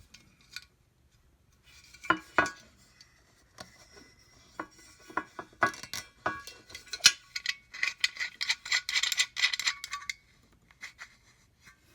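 Small steel camp-kit pieces being handled: scattered clicks and knocks, then a busier stretch of metal clinking and rattling with short ringing tones, easing off near the end.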